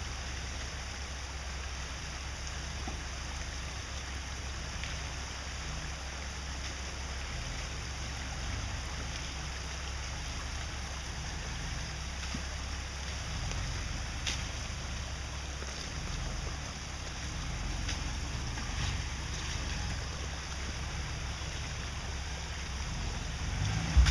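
Lifted Jeep Wrangler TJ's engine running at low revs as it crawls over rocks, heard from a distance as a steady low rumble.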